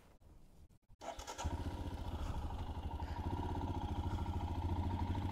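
Royal Enfield Himalayan's 411 cc single-cylinder engine starting about a second in, catching at once and settling into a steady idle.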